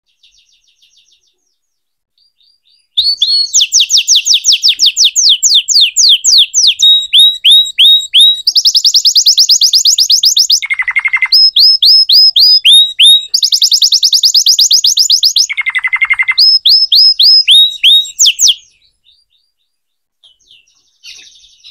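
Red canary singing a loud, continuous song of fast trills and rapid repeated whistled notes, with two lower, rolling trills in the middle. It starts about three seconds in and breaks off near the end, with a few faint twitters either side.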